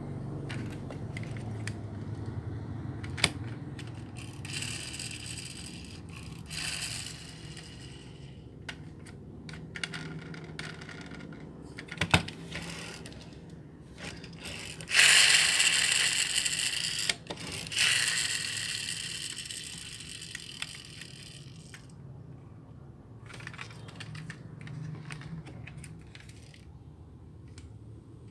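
Die-cast toy police pickup trucks being handled and run along a wooden tabletop: scattered small clicks and scrapes, and several rolling noises, the two loudest about halfway through, each starting sharply and fading over a couple of seconds.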